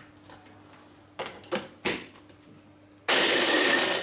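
A few sharp clicks as the 600-watt hand blender's motor unit is fitted onto its chopper bowl. About three seconds in, the motor starts and runs loudly with a steady high whine, grinding whole-wheat biscuits to crumbs.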